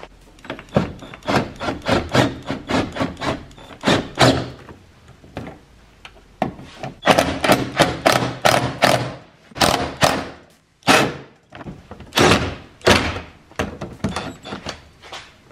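Hand ratchet with a long extension clicking in runs of quick strokes as it drives a tow mirror's mounting bolts back in, in several bursts with short pauses between them.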